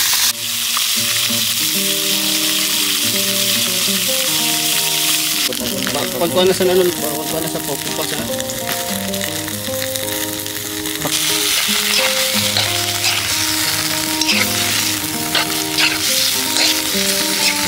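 Pork adobo sizzling in a pan as its sauce cooks down, a steady frying hiss that eases a little after about five seconds and picks up again later, with a few light clicks. Background music with a melody plays throughout.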